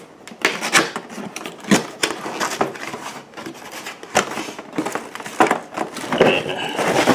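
Irregular knocks, scrapes and crinkles as a cardboard box and its packed contents are handled and pulled out during unboxing.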